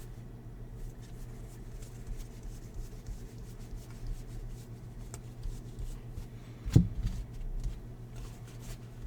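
Baseball trading cards being handled and sorted, with light sliding and small ticks and one sharp knock about seven seconds in, over a steady low hum.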